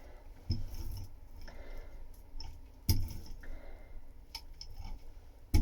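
Metal fin roller worked over resin-wet fibreglass on a boat hull, a soft squishing as it rolls out the air and excess resin, with three sharp knocks.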